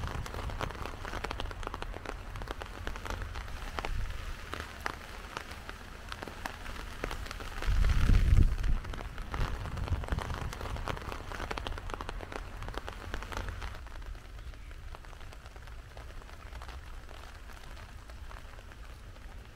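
Heavy cyclone rain falling steadily, with many individual drops ticking on nearby surfaces. There is a brief low rumble about eight seconds in, and the rain eases slightly near the end.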